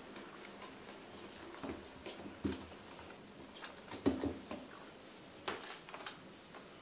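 A cat playing with a toy on a wooden floor: irregular soft thumps and taps from its paws and body as it pounces and rolls. The loudest thump comes about four seconds in.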